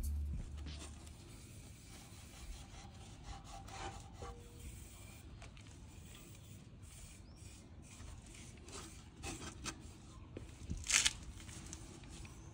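Cloth rubbing over the oily metal inside of an engine valve cover, a faint, scratchy wiping. A sharp click near the end.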